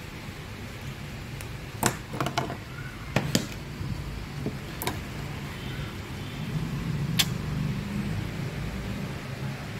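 Small clicks and taps from handling wire, flux and tools during bench soldering work, about six in all, over a steady low hum.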